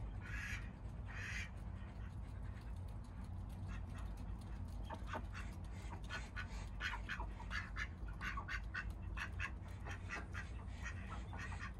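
Mallard ducks quacking, a run of short quacks that comes thicker after about four seconds, over a low steady rumble.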